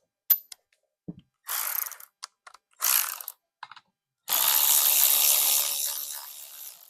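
A tool driving fasteners on a chainsaw: a few short ratcheting bursts, then one longer run of about two and a half seconds that trails off.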